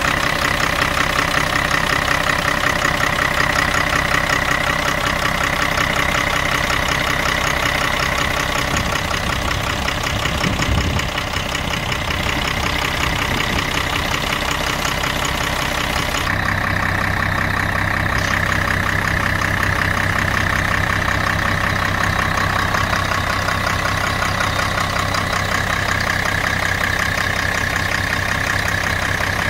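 1991 Chevy Kodiak dump truck engine idling steadily. About sixteen seconds in, the sound changes abruptly to a lower, duller note and then holds steady again.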